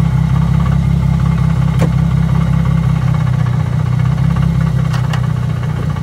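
Infiniti G35's V6 engine idling steadily, heard from underneath the car, with a few faint ticks.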